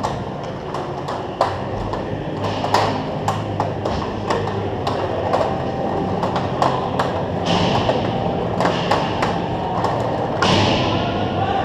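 Ice hockey play in front of the net: many short clacks of sticks and puck on the ice and skate blades cutting the ice, with two longer hissing skate scrapes, one a little past halfway and one near the end.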